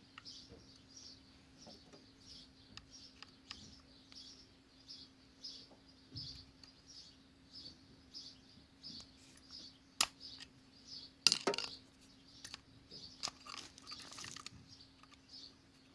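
A small bird chirping over and over, about two short high chirps a second, with a faint steady hum underneath. A few sharp metallic clicks from work on the motorcycle's rear brake caliper come a little past halfway.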